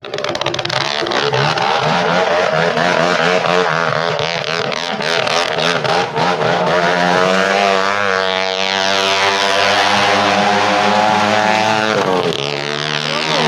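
Motorcycle engine revving, its pitch going up and down repeatedly, then held fairly steady for a few seconds before dropping and rising again near the end.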